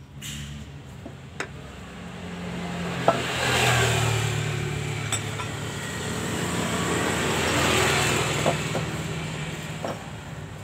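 A motor vehicle's engine running, growing louder twice, with a few sharp metal clinks as a crankshaft is worked into a diesel engine's crankcase by hand.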